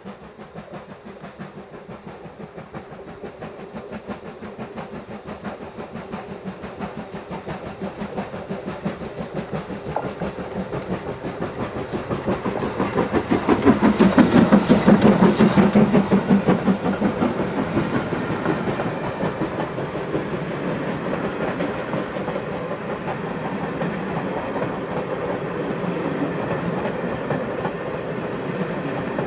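Steam train approaching and passing, loudest about halfway through as the locomotive goes by. Its coaches then roll past with a steady clickety-clack of wheels over the rail joints.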